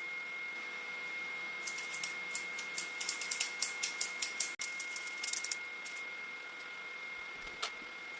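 Steady high-pitched whine from an idling 3D printer. In the middle comes a quick, irregular run of sharp clicks for about four seconds, then one last click.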